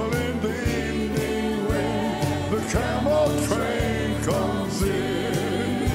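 Live gospel song with a band: grand piano, bass and drums keeping a steady beat, with voices singing over it.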